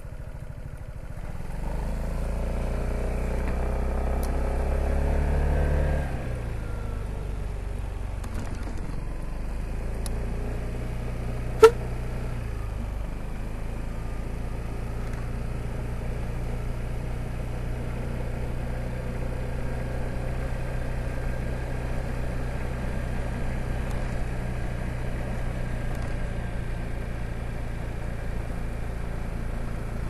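Piaggio BV 350 scooter's single-cylinder engine pulling away from a stop with a rising note, easing off about six seconds in, then running steadily at cruising speed. A single sharp click about a third of the way through.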